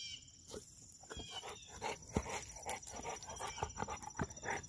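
A pit bull drinking and sniffing at a rock puddle: a run of short, irregular laps, snuffs and clicks, about three or four a second at their busiest.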